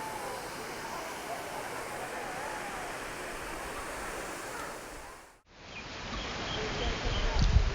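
Steady rushing outdoor noise. It drops out for a moment a little over five seconds in, then resumes with low rumbling near the end.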